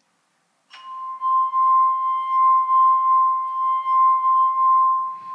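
Water-filled wine glass marked C singing as a wet finger is rubbed around its rim: one steady ringing tone with fainter higher overtones, starting about a second in and holding, its loudness swelling and easing slightly.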